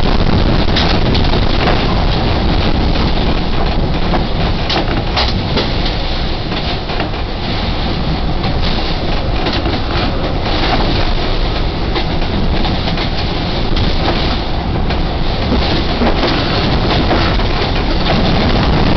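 Hurricane-force wind blowing steadily against a sailboat's hull, heard from inside the cabin, with frequent small knocks and rattles.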